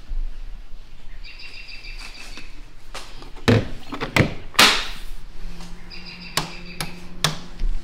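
A storage hatch on a canoe deck being handled: a series of sharp clicks and knocks from its hinged lid and latch, with one louder clattering rustle in the middle.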